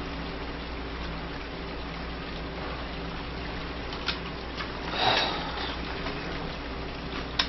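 Steady low hum of room tone, with a sharp click about four seconds in, a brief louder rustling rush a second later, and another click near the end.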